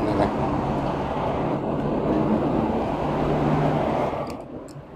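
Steady motor-vehicle noise from passing road traffic, an engine hum with road noise, dying away about four seconds in; a few faint sharp clicks follow near the end.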